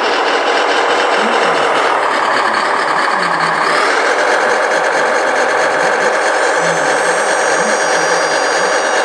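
Electric motors, gearboxes and hydraulic pumps of radio-controlled model construction trucks whirring steadily, with a slight shift in pitch about four seconds in.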